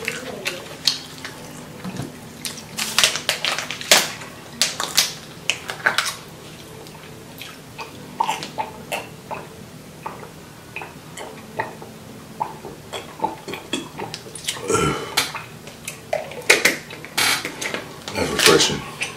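Close-up eating and drinking sounds: scattered sharp mouth clicks and smacks with a fork tapping a foam food container, swallowing as a drink is gulped from a plastic bottle in the middle, and the bottle's plastic cap twisted back on near the end, over a faint steady hum.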